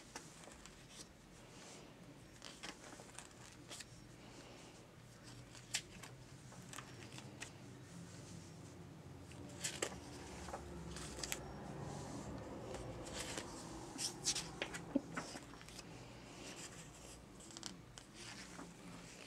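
Pages of a century-old hardcover book being turned by hand: faint, scattered paper rustles and crisp flicks, with the loudest flicks about halfway through.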